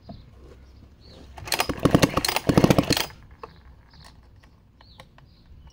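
An Echo CS-60S chainsaw's recoil starter rope pulled, spinning the engine over in a rapid burst of strokes for about a second and a half without it firing. The spark plug is out and laid on the cylinder for a spark check, so the engine turns freely with no compression. A few faint clicks from handling follow.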